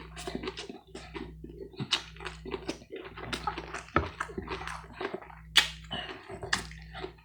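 Close-miked chewing of a mouthful of sandwich: a steady run of wet mouth clicks and smacks, one sharper click about five and a half seconds in, over a low steady hum.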